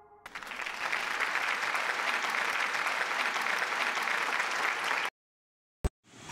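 Egg and ground-meat omelette sizzling in a frying pan: a dense, steady crackle that cuts off suddenly about five seconds in, followed by one sharp click.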